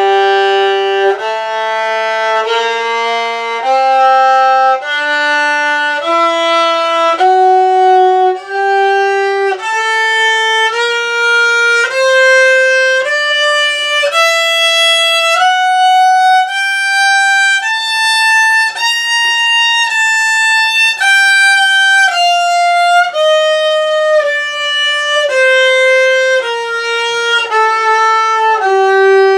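Violin played with the bow: a G minor scale in first position, one evenly bowed note about every second, climbing two octaves from the low open G and then stepping back down.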